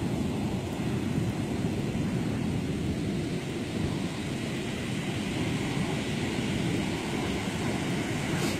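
Ocean surf breaking and washing up a sandy beach, with wind buffeting the microphone as a steady low rumble.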